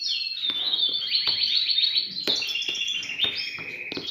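Caged finches singing continuously in fast trills and runs of repeated notes, each run held at one pitch before the song steps to another, with a few light clicks.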